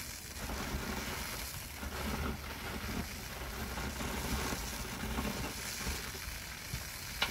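Fire hose stream spraying: a steady hiss and crackle over a low rumble, with a sharp click near the end.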